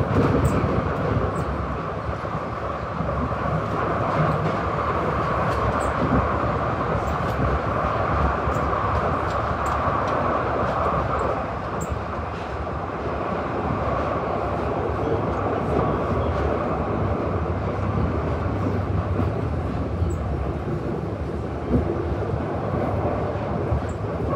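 Glasgow Subway train running through its tunnel, heard from inside the carriage: a steady rumble of wheels on rail with faint clicks here and there.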